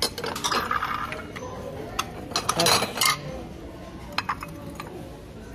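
Ceramic plates and bowls clinking against each other as they are handled from their stacks: a string of light clinks and knocks, busiest about two and a half to three seconds in.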